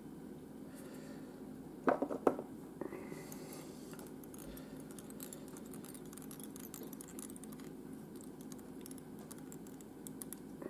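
Small clicks and knocks of a fly-tying varnish bottle being opened and handled, sharpest in a quick cluster about two seconds in, then faint scattered ticks as the varnish brush is worked on the fly's head.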